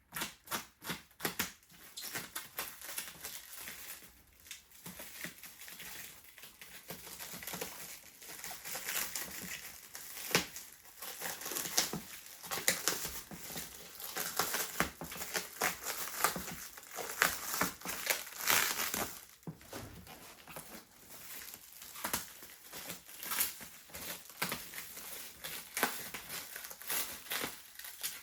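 Plastic packing wrap being crinkled, crumpled and torn while a boombox is unwrapped, a continuous irregular rustling with many small crackles.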